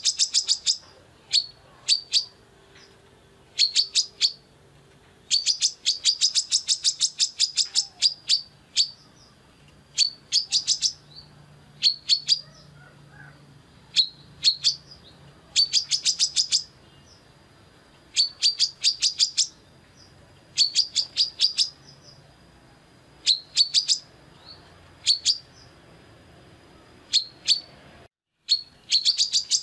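Female brown-throated sunbird calling: rapid bursts of sharp, high chips, each about a second long, repeated every second or two, with a faint, thin, high whistle held between bursts. The sound cuts out for a moment near the end.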